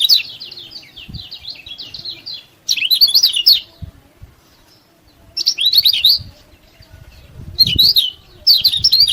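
Kecial kuning (Lombok white-eye) giving rapid runs of sharp 'ciak ciak' chirps. A softer chirping run in the first two seconds is followed by four short, loud bursts.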